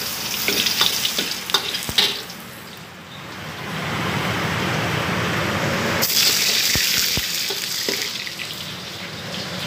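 Steady hissing of a commercial kitchen wok station, with a few sharp knocks of pots and utensils in the first two seconds. The hiss drops briefly, then comes back fuller about four seconds in.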